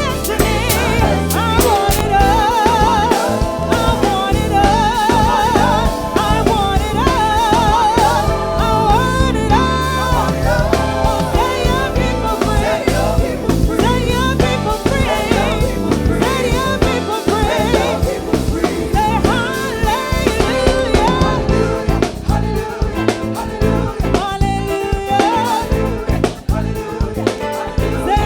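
Gospel praise-and-worship song played by a band: a drum kit keeps the beat under a lead singer, whose held notes waver with vibrato in the first several seconds.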